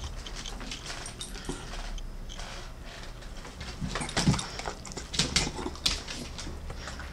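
A corgi jumping and scrabbling on a tiled floor as it snaps up a piece of chicken, making scattered sharp clicks of claws and jaws. A louder flurry comes about four seconds in, when it jumps for the food.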